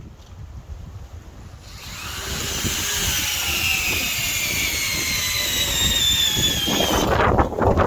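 Metabo HPT DV18DC 18-volt hammer drill in low gear driving a lag bolt into softwood under heavy load. The motor whine starts about two seconds in and falls slowly in pitch as the load builds, then breaks into a short rough burst near the end as the bolt seats.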